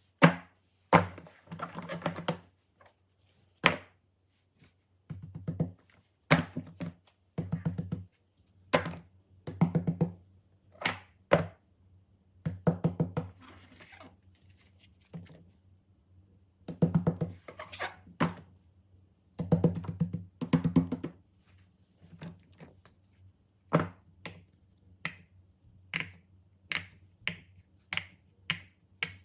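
Fidget toys being pressed and clicked by hand, including silicone pop-it bubbles popping: clusters of rapid clicks, then near the end a steady run of single pops about two a second.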